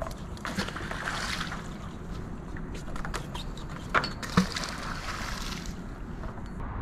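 Wind rumbling on the microphone, with two sharp knocks about four seconds in and then a splash as a fishing magnet on a rope lands in the river.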